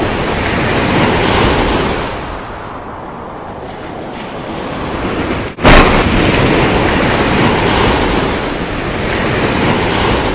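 Sound-effect rush of wind and surf-like noise that swells and eases. About five and a half seconds in it drops out for a split second, then comes back as a sudden loud whoosh.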